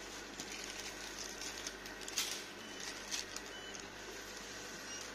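Plastic ice-cream wrappers crinkling in short bursts as packets are rummaged through and picked out of a shop chest freezer, over a steady background hum.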